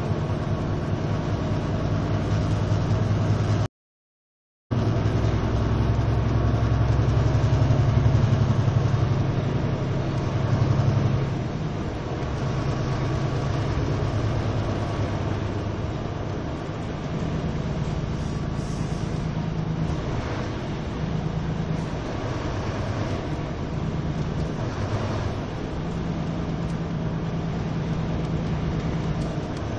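Engine drone and road noise inside a moving vehicle's cab: a steady low hum that swells louder from about six seconds in, eases off again around eleven seconds, and then runs on evenly. The sound cuts out completely for about a second near four seconds in.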